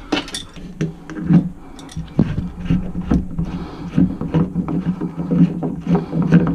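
Hand demolition work in a boat's small cabin: a run of irregular knocks, clunks and clatters as fixtures and trim are pried and pulled loose, over a steady low hum.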